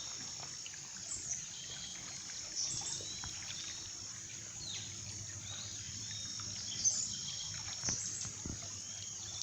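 Insects droning steadily and high, with birds calling in short chirps several times, over a faint low rush of flowing river water.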